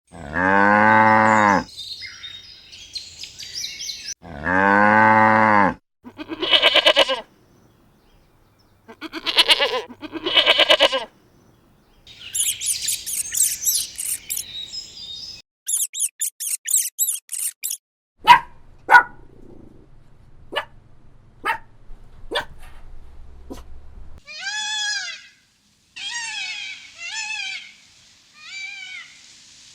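A series of farm animal calls one after another: a cow mooing twice with long low calls, then goats bleating in quavering bursts, followed by high chirping calls, a run of sharp clicks, and several short falling calls near the end.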